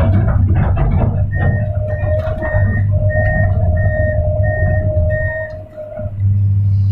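Hydraulic excavator heard from inside its cab: the engine drones steadily and a warning alarm beeps evenly, about one and a half beeps a second, from about a second in until near the end, over a steady whine. A few clattering knocks come in the first second.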